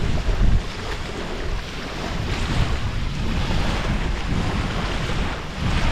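Wind buffeting the microphone in low rumbling gusts, strongest in the first half-second, over a steady rush of wind and surf.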